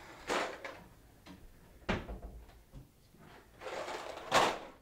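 Kitchen cupboard and microwave doors being opened and shut while a cardboard box of dry pasta is handled. There is a sharp knock about two seconds in, and a louder short rattling rush near the end.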